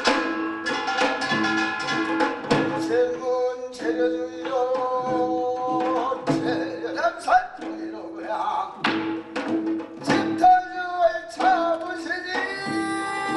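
Korean binari blessing chant, a male voice singing with wavering, bending notes over traditional Korean percussion, with many sharp strikes and a short tone repeated at an even beat.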